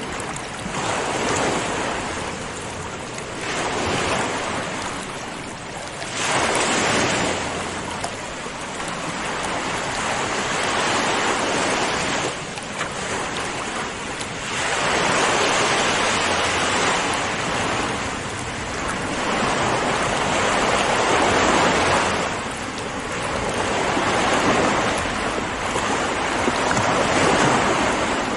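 Ocean waves breaking and washing on a shore, one surge after another every few seconds.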